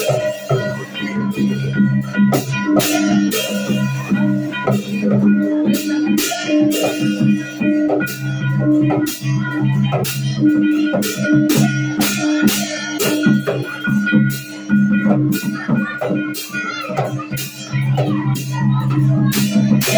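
Ritual percussion: a hand-held gong and small drum struck again and again in a loose, steady beat, the gong's low ringing tone carrying on between strokes.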